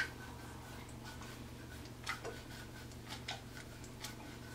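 Faint scattered clicks and light rustling from a plastic oil applicator bottle's nozzle being worked through hair against the scalp, over a low steady hum.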